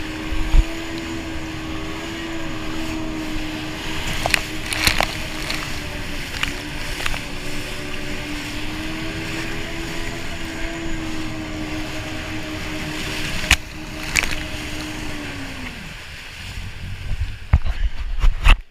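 Yamaha jet ski engine running at a steady speed, with water and wind rushing past. About three-quarters of the way through, the engine note drops away as the craft slows, and a few sharp thumps follow near the end.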